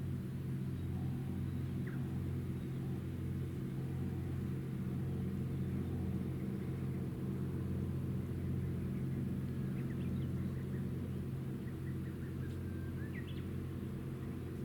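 Steady low engine drone from the JMSDF helicopter destroyer Kaga, several deep tones held level throughout. A few faint bird chirps come through about ten and thirteen seconds in.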